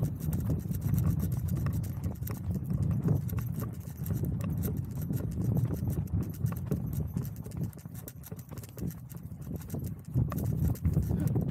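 Hoofbeats of a ridden Japanese native horse on a dirt track, a run of clip-clop steps.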